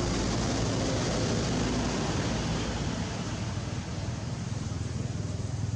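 A motor vehicle's engine running steadily with a low hum, easing off slightly about halfway through.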